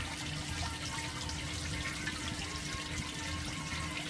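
Water splashing and churning steadily from a small fountain jet in a children's toy-fishing pool, with a faint steady hum underneath.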